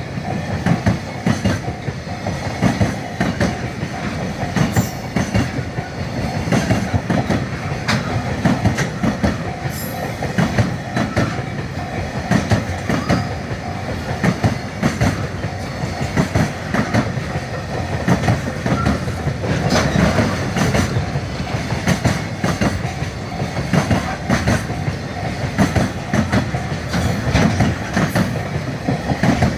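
Freight train passing close by, its wagons' wheels clattering over the rail joints in a fast, unbroken rhythm of knocks.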